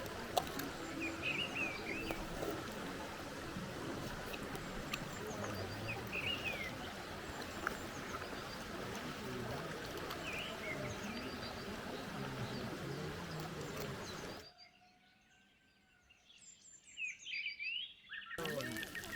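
Birds chirping briefly every few seconds over a steady outdoor background hiss. About three-quarters of the way through, the background cuts out suddenly to near quiet, leaving a few faint bird calls.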